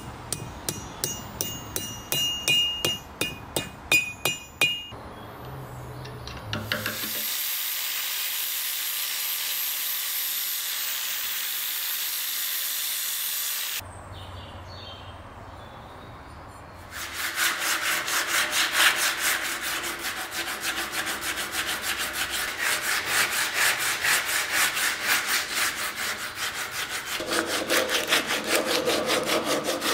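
Light hammer taps on a thin metal sleeve over an anvil horn, each ringing briefly. About seven seconds in comes a steady high hiss for several seconds. Then fast, even rubbing strokes by hand on a wooden handle run to the end and are the loudest part.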